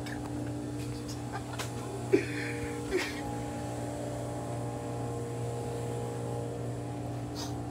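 Steady machine hum of store equipment, with several fixed tones. Two short knocks come about two and three seconds in, the first the louder.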